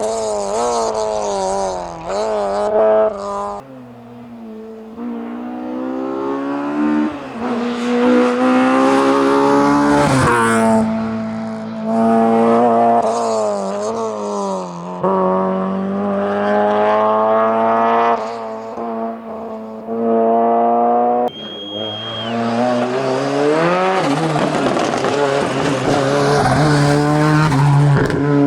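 Rally car engines at full attack: a Honda Civic revving hard, its pitch climbing and dropping over and over through gear changes and lifts. About 21 seconds in, a Ford Sierra Cosworth's turbocharged four-cylinder takes over, revving up through the gears.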